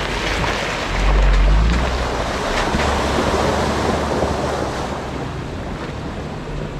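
Wind buffeting the microphone: a steady rushing noise, with a low rumble that swells about a second in and fades out by about five seconds.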